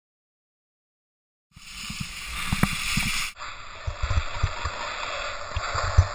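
Silent for about a second and a half, then wind buffeting a moving camera's microphone during a downhill ski run, with the rush of skis sliding over slushy snow and grass and irregular low thumps.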